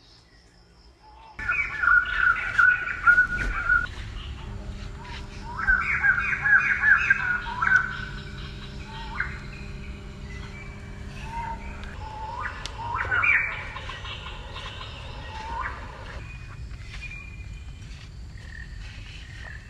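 High-pitched animal calls in three loud bursts, about a second and a half in, around six seconds in and around thirteen seconds in, with a few short rising calls between them.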